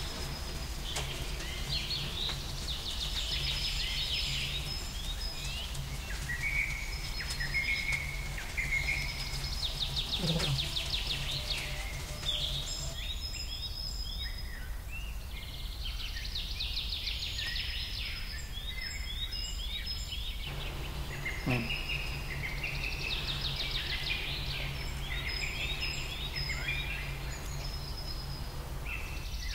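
Small birds singing and chirping, with quick trills and short falling calls repeating throughout, over a steady low hum that drops out for several seconds midway.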